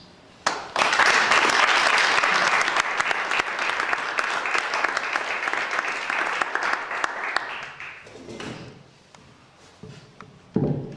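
Audience applause that starts about half a second in and dies away after about eight seconds, followed by a couple of low thumps near the end.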